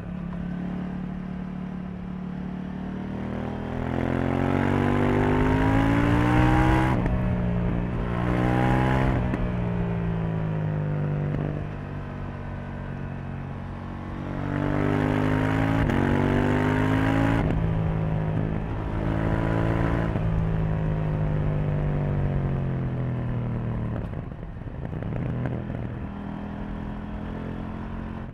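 KTM 790 Duke's parallel-twin engine, heard from the rider's seat. Twice its note climbs steeply under acceleration and then drops sharply, with steady cruising between and a falling stretch as it eases off near the end.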